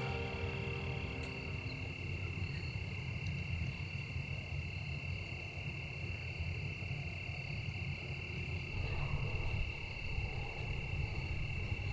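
Steady chorus of insects, a continuous high-pitched ringing, over a low rumble.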